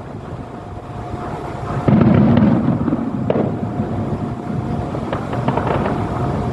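A large engine running with a loud, rough rumble that gets louder about two seconds in, with scattered sharp clicks over it.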